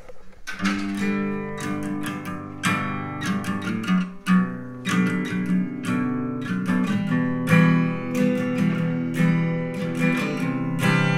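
Recorded acoustic guitar played back through a homemade four-way speaker of drivers in PVC tubes facing four directions, with no EQ: chords played continuously, starting about half a second in.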